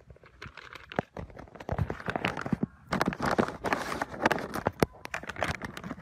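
Irregular footsteps crunching on dry sand, mixed with rustling and knocks from a handheld phone being moved about.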